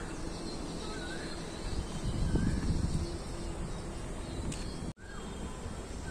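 Rural outdoor ambience with birds calling, short chirps recurring about once a second, and a louder low rumble around two seconds in. The sound drops out for an instant near the end.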